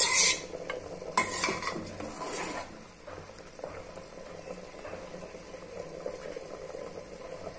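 A metal slotted spoon stirs in an aluminium pressure-cooker pan of lentils, scraping and clinking against the pan in three bursts over the first few seconds. After that comes a steady, quieter sizzle from the hot pot.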